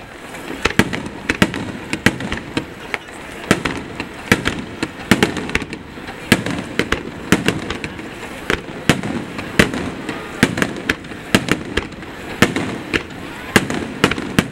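Display fireworks: aerial shells bursting in a rapid, uneven string of sharp bangs, about two a second.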